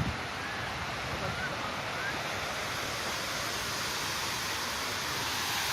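A steady rushing hiss of outdoor noise, with a few faint short chirps over it.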